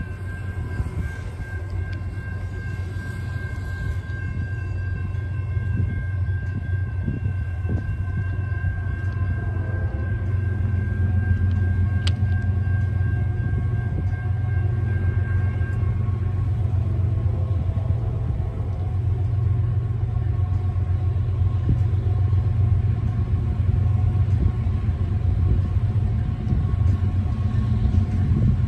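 Diesel locomotives of an approaching freight train rumbling in the distance, slowly growing louder. A steady high whine sounds over the rumble and stops about halfway through.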